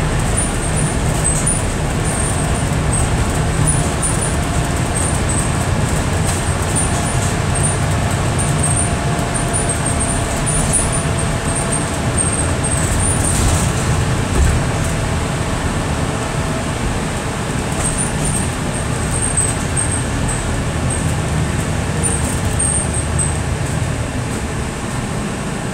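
Scania Enviro 400 MMC double-decker bus on the move, heard from inside on the upper deck: a steady low engine and road drone. Faint high chirping rattles come and go over it.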